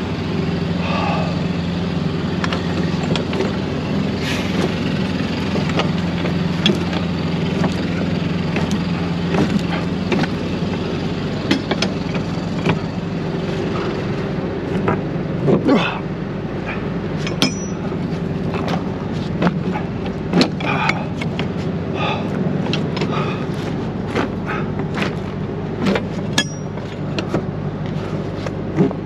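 An engine idling steadily, with repeated sharp metal clicks, clanks and knocks from trailer door latch bars and handles being worked by gloved hands.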